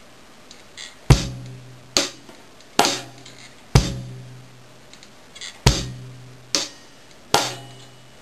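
Drum kit played slowly, a bossa nova bar of four hi-hat strokes with bass drum on the first and fourth and a rim click on the snare on the third, played twice: eight even strokes about a second apart.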